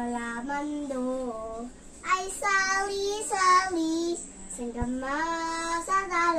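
A young girl singing alone without accompaniment, holding long notes that slide up and down in pitch, loudest and highest in the middle.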